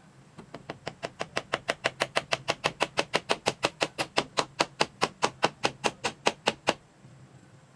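Rapid, even blows of a hand tool, about five a second, starting soft and growing louder, then stopping abruptly after about six seconds.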